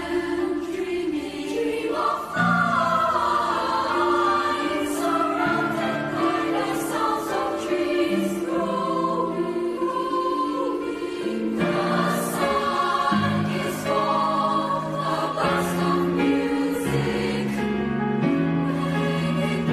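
Mixed-voice youth choir singing in parts: held chords that move every second or two, with crisp consonants, swelling louder about two seconds in.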